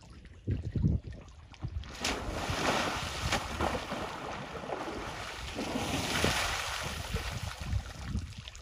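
Water sloshing and splashing around an African elephant moving and bathing chest-deep in water, with some wind on the microphone; a few low thumps in the first second, then steady washing noise with occasional sharper splashes.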